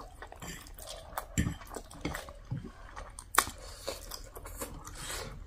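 Two people slurping and chewing spicy instant noodles, with wet mouth sounds and scattered small clicks; one sharp click about three and a half seconds in.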